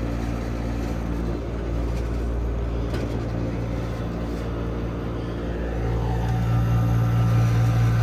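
GM Frigidaire window air conditioner running just after startup, its Tecumseh AJ reciprocating compressor and fan motor humming steadily while the back fan blade rattles. About six seconds in, the low hum grows louder.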